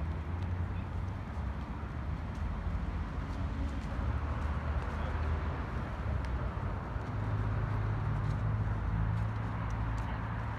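A steady low rumble with faint scattered clicks over it.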